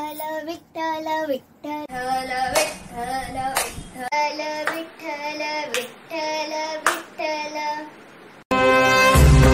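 Children singing a devotional song, their voices taking over from one another in turn, with a few hand claps keeping time. Near the end it cuts to loud recorded music with a heavy beat.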